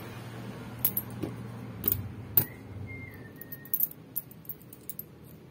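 Loose metal soldering-iron tips clinking against each other as they are picked up and handled, in a handful of separate sharp clicks.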